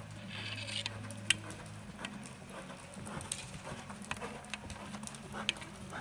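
A reining mare's hoofbeats on the dirt footing of an indoor arena, heard as irregular clicks and thuds, with a low steady hum underneath that fades out about two seconds in.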